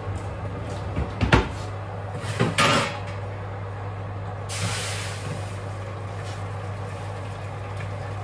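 Wooden kitchen drawers knocking shut, the loudest knock about a second in and a few more shortly after. About four and a half seconds in, a sudden hiss of steam as boiling water from a kettle hits a hot roasting tin in the oven, fading over about a second, over a steady low hum.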